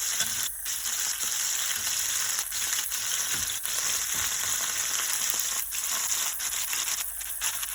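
Red snapper frying in hot oil in a pot on the stovetop, a steady high sizzling hiss.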